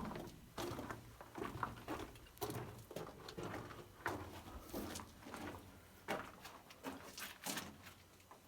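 Irregular footsteps and scuffs on loose rock and gravel, a soft crunch or scrape every half second to a second.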